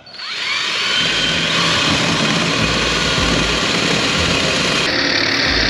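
Ryobi cordless drill spinning up with a short rising whine, then running steadily as it drills up into the overhead deck timber.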